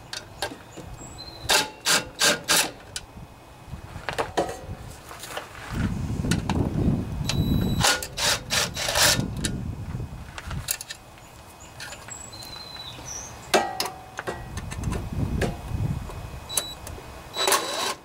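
Cordless drill with an 8 mm socket running in two longer bursts to back out bolts, with sharp metal clicks and clatter in between.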